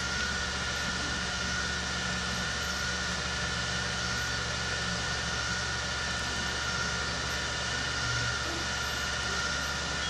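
Steady background hum and hiss with a few faint steady tones, even and unchanging throughout: room noise, with no speech.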